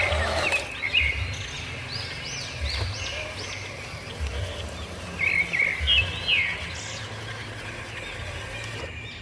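Birds chirping outdoors, a string of short arching calls that come thickest about a second in and again around the middle, over an intermittent low rumble.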